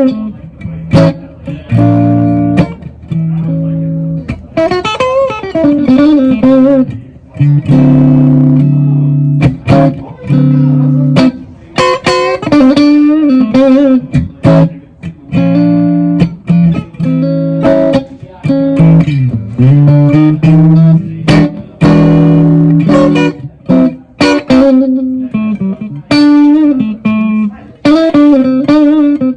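Ibanez AZ Essentials electric guitar being played: sustained chords alternating with single-note lead lines, with string bends and vibrato.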